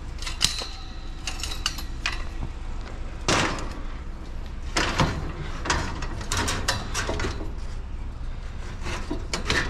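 Irregular knocks, clanks and rubbing of a piece of curbside scrap being broken down by hand to fit the load, with a few sharper hits in the middle. A steady low rumble runs underneath.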